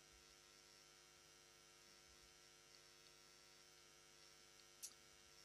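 Near silence: a faint steady electrical hum, with one short faint click near the end.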